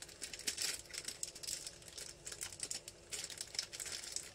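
Clear plastic packet crinkling in the hands in quick, irregular crackles as new piston rings are taken out of it.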